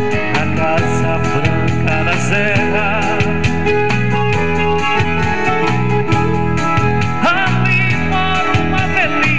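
Sertanejo song played on an electronic keyboard, a steady rhythmic backing with a wavering, vibrato-laden melody line over it.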